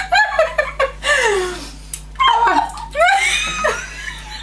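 Women laughing hard in repeated bursts, with high sliding cries of laughter.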